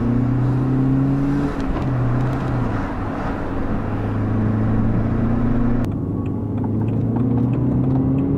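BMW 116i's N43B16 1.6-litre four-cylinder petrol engine heard from inside the cabin while driving, running well with its head gasket replaced. Its note drops back twice in the first few seconds and rises again as the car accelerates through the gears, over steady road noise.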